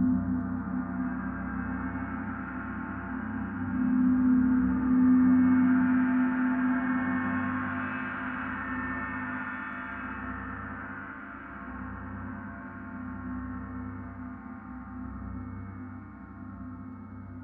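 Large suspended gong played with soft felt mallets: a continuous ringing wash of many tones over a strong low hum, swelling about four seconds in and then slowly dying away.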